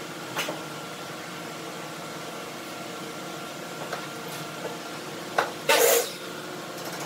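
A plastic squeeze bottle pressed by hand, with a few light clicks and then, near the end, a short loud crackle lasting about half a second as the bottle is squeezed to push black filler through its nozzle. A steady background hum runs underneath.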